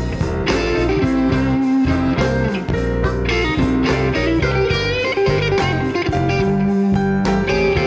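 A blues band playing live, with electric guitar to the fore over bass and drums, and bent notes sliding in pitch.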